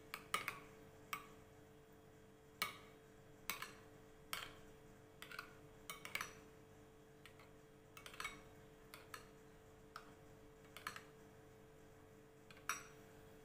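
Metal spoon stirring thick spiced yogurt in a bowl, clinking against the bowl's sides in irregular light taps, over a faint steady hum.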